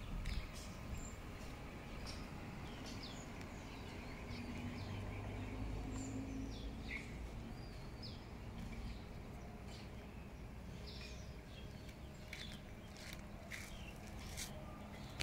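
Wild birds chirping and calling in short, scattered notes over a steady low outdoor rumble.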